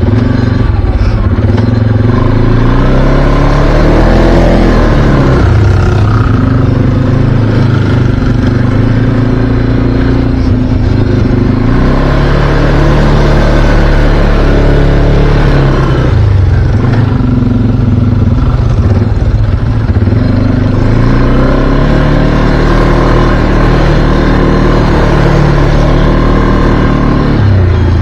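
Can-Am Outlander ATV engine running under load, its pitch rising and falling several times as the throttle is worked on and off.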